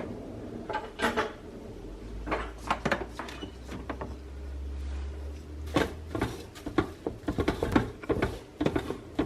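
Kitchen clatter: a string of knocks and clinks, as of dishes, utensils and a drawer or cupboard being handled, coming faster in the second half. A low hum runs under it for a few seconds in the middle.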